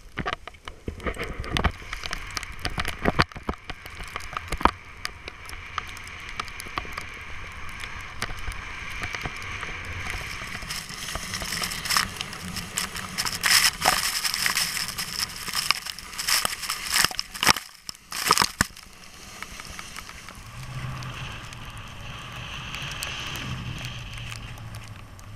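Skiboards sliding and scraping over snow: a crunching, crackling hiss broken by many sharp knocks. It grows louder and busier in the middle.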